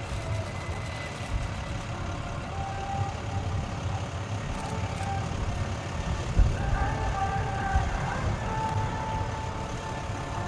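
F-16CM fighter's jet engine at low power as the aircraft rolls out on the runway after touchdown: a steady rumble with a faint thin whine over it.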